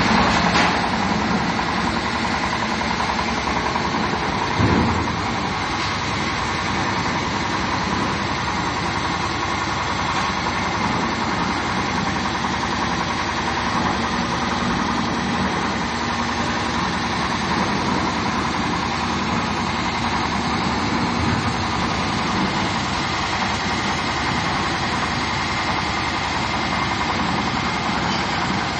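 Concrete mixer machine's engine running steadily, with one brief low thump about five seconds in.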